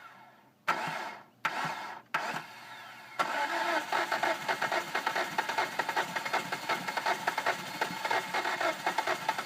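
2005 Hyundai Sonata 2.4-litre DOHC four-cylinder being cranked on the starter: three brief bumps, then about three seconds in a steady, pulsing crank that goes on without the engine catching. This is the hard-start fault, with the engine turning over but not firing into a run.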